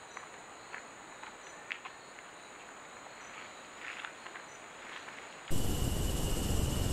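Insects trilling steadily at a high pitch, with scattered faint ticks and chirps. About five and a half seconds in the sound cuts abruptly to a much louder steady hiss with a high whine running through it.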